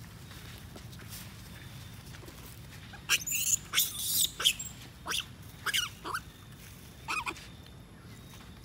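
Long-tailed macaque giving a run of short, shrill squeals and screams, starting about three seconds in and lasting about four seconds, some sliding down in pitch.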